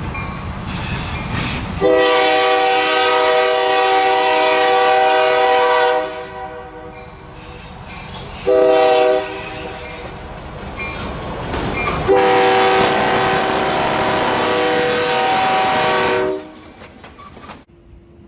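Locomotive multi-chime air horn sounding three blasts, long, short, long, each a steady chord of several notes, over the rumble of a passing train.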